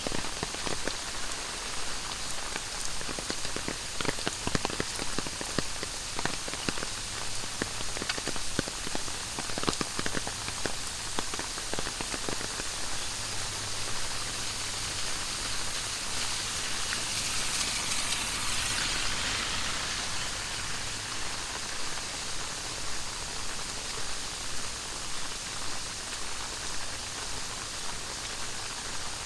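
Heavy tropical rain falling, with many close drops ticking and splashing on surfaces over a steady hiss. A little past halfway a rush of higher hiss swells and fades.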